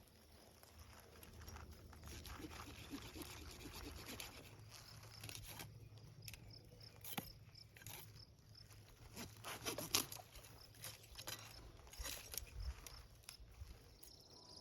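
Faint rustling and crunching with scattered light clicks, from someone moving about or handling things in the brush, with crickets chirping faintly.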